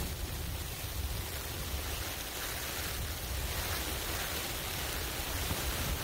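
Steady rushing wind with a low, fluctuating rumble, buffeting a tent.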